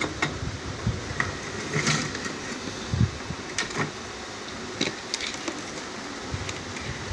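A few scattered small clicks and knocks from wires and parts being handled under a metal workbench, over steady room noise.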